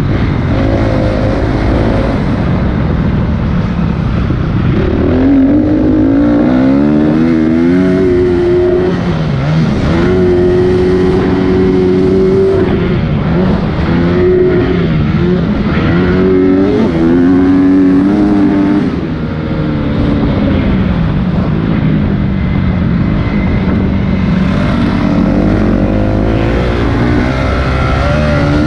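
Motocross dirt bike engine under hard riding, its pitch climbing in steps as it revs up through the gears and falling back off the throttle, again and again.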